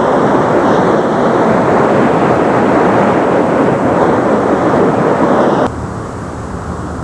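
Loud, steady rush of a rocky stream's flowing water. It cuts off abruptly near the end to a quieter background.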